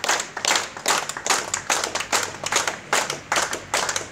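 A group of people clapping their hands together in a steady rhythm, about two to three claps a second.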